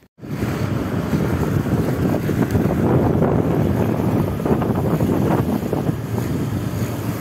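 Wind buffeting the phone's microphone outdoors: a loud, gusting rumble that starts abruptly just after the cut and runs on unevenly.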